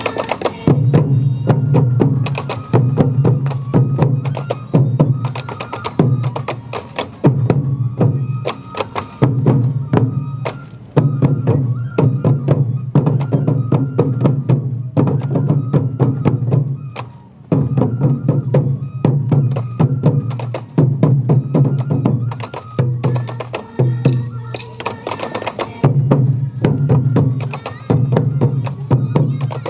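Sansa odori festival music: taiko drums beating a steady repeating rhythm, with sharp clicks of sticks struck on the drum rims and a higher melody line over them.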